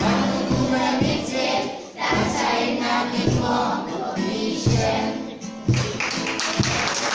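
Children's choir singing with instrumental accompaniment over a steady low pulse; about six seconds in, audience applause breaks out over the last notes.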